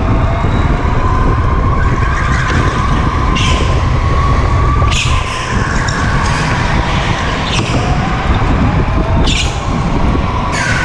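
Go-kart heard from onboard at racing speed: a motor note that rises and falls with speed over heavy rumble from wind and vibration, with about six short bursts of tyre squeal on the concrete floor through the corners.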